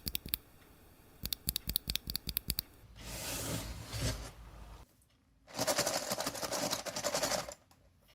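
Typing on an Aula F99 mechanical keyboard with Greywood V3 switches and PBT pudding keycaps: a quick run of key clicks ending about half a second in, then a second run of about eight to ten clicks a second. After that come two longer stretches of scratchy scraping noise, the first about three seconds in and the second, louder one about five and a half seconds in.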